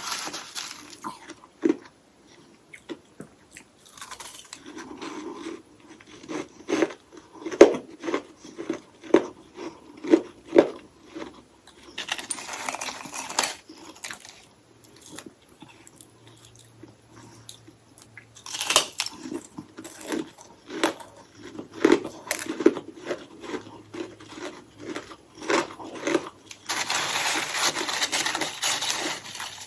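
Close-miked biting and chewing of hollow ice sticks coated in freezer frost: steady crunching made of many short cracks, with a few longer, louder stretches of crunching.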